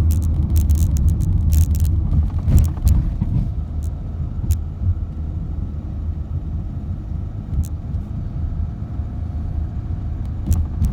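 Car driving along a road, heard from inside the cabin: a steady low rumble of engine and tyres, with frequent sharp knocks and rattles in the first few seconds and only a few later on.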